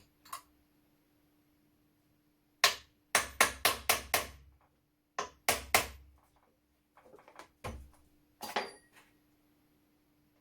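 Hammer blows on the parts of an old flintlock shotgun being knocked apart: two quick runs of sharp strikes, about four a second, then a few softer knocks near the end.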